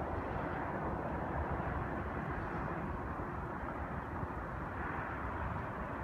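Steady rushing outdoor noise with an uneven low rumble, the sound of wind on the phone's microphone.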